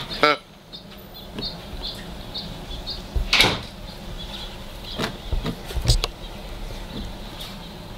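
Puppies scuffling over a large plush toy on concrete: rustling, scraping and bumping as they bite and drag it, with a short squeak just after the start and a few louder knocks, the loudest about three and a half and six seconds in.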